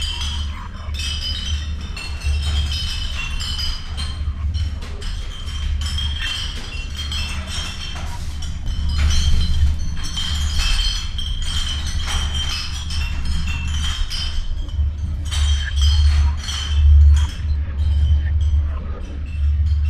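A low, pulsing drone with a dense, steady clatter of clinking over it, getting louder in the second half.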